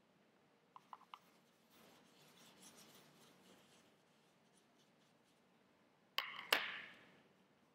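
A paintbrush scrubs and swirls in a plastic paint palette's well, a soft rubbing sound lasting about two seconds. There are a few small clicks just before it, and two sharp knocks in quick succession near the end.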